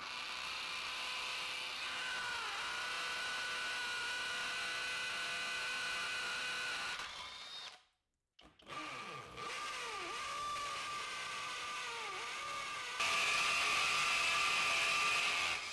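Flex 24V brushless hammer drill in hammer mode, drilling into masonry with a masonry bit. There are two long runs, and the motor's whine dips briefly each time the bit loads up. The second run gets louder near the end.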